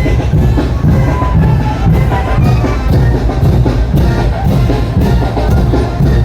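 Mexican brass banda playing a son de chinelo: brass over a steady bass-drum and drum beat.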